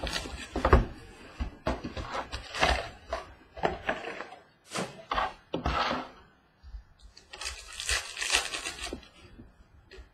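A cardboard trading-card hobby box being opened and its foil packs handled on a table: irregular taps, scrapes and rustles. A longer crinkle of pack wrapper comes about three-quarters of the way through.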